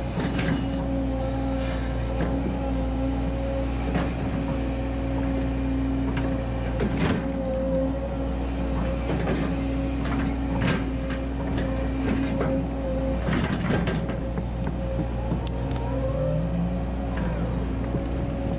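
Volvo 140 hydraulic excavator running under load as it works soil with its bucket: a steady engine drone with a hydraulic whine that shifts pitch, and a few sharp knocks from the working machine.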